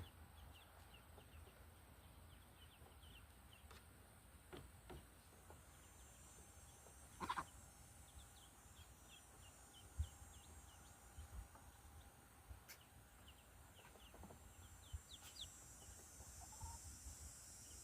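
Chickens clucking faintly, with many short, high peeps scattered throughout and a single louder call about seven seconds in.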